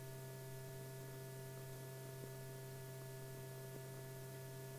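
Steady low electrical hum with several faint steady tones above it and a light hiss: the background noise of an old film soundtrack between lines of narration.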